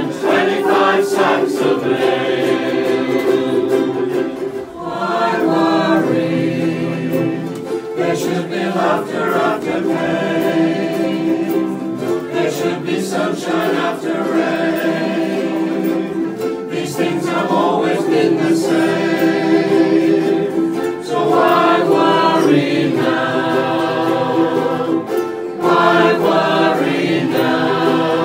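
A ukulele ensemble strumming together while the group sings in unison.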